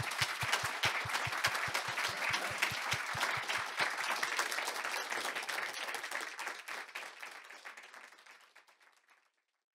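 An auditorium audience applauding, a dense mass of hand claps that fades out near the end.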